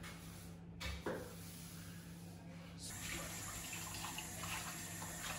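Water from a kitchen tap running into a stainless-steel sink, a steady faint hiss that starts about three seconds in. Before it there is a short soft thump about a second in.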